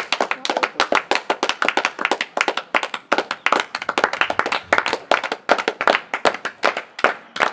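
A group of adults and children clapping their hands, with fast, continuous, slightly uneven claps.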